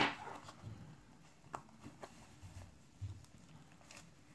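Quiet handling of a Swiss Army knife being pushed into its leather sheath: a soft knock at the start, then a few light clicks and faint rustling.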